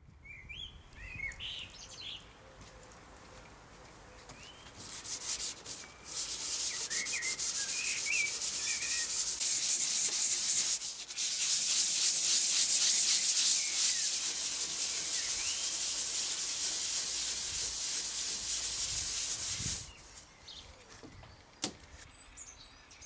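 Sandpaper rubbed by hand in quick back-and-forth strokes over the laminated wooden hull of a Malecite canoe: a steady hiss that starts about five seconds in, breaks off briefly near the middle, and stops a few seconds before the end. Birds chirp in the background at the start and during the sanding.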